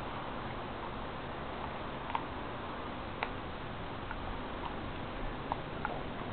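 Siberian husky chewing on a whole raw chicken: a few sharp, irregular crunches and clicks of teeth on bone, the strongest two to three seconds in, over a steady hiss.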